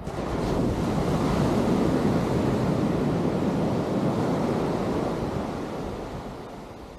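Atlantic surf breaking and washing up a sand beach, swelling right at the start and slowly fading away toward the end, with wind rumbling on the microphone.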